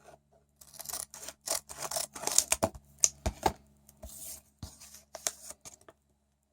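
A hockey card pack's wrapper being torn open and crinkled by hand: a run of irregular crackling and rustling that stops about a second before the end.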